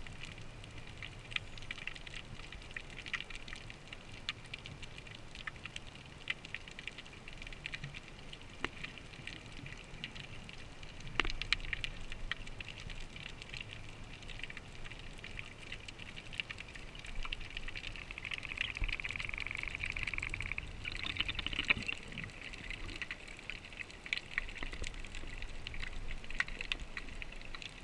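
Underwater ambience heard through a camera's waterproof housing: a steady hiss with many scattered sharp clicks and crackles, swelling a little for a few seconds past the middle.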